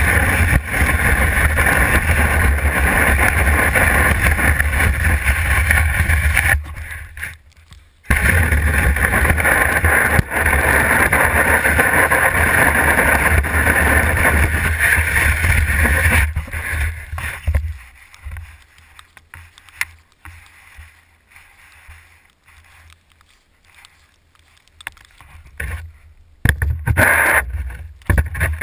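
Snow pusher shovel blade scraping along a concrete sidewalk as it pushes snow, heard through a camera fixed to the shovel's shaft. It runs in two long pushes with a brief break about seven seconds in; after about sixteen seconds it turns into quieter, scattered scrapes and knocks, with louder ones near the end.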